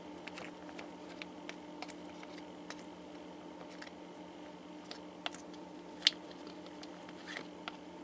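Small plastic paint cups clicking and tapping against each other and a plastic tray as they are picked up and set down in a row: a handful of scattered light clicks, the sharpest about six seconds in, over a faint steady hum.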